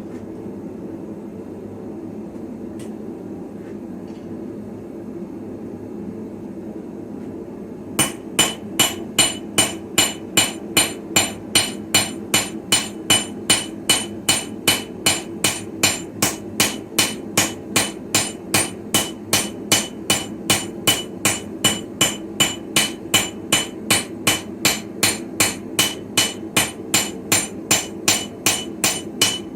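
Steady low rumble, then from about eight seconds in a long, even run of hand-hammer blows on an anvil, about two and a half a second, each one ringing: forging a sickle blade on an early-medieval-style anvil.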